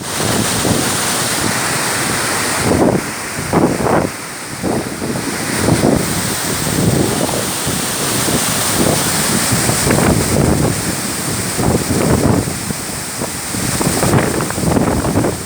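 Waterfall rushing: a loud, steady hiss of falling water, with wind buffeting the microphone in repeated gusts.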